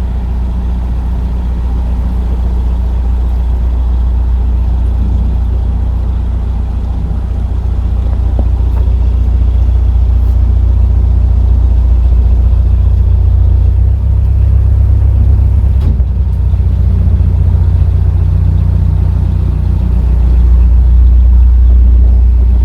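Narrowboat's diesel engine running steadily with a deep, loud hum, getting a little louder near the end.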